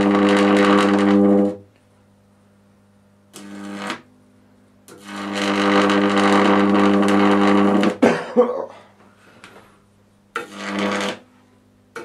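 Microwave oven transformer powered up, buzzing loudly with a high-voltage arc. The buzz has a deep mains hum under a harsh crackle. It comes in bursts: a long one ending about a second and a half in, a short one near four seconds, a three-second one from about five seconds that ends in a click, and another short one near the end.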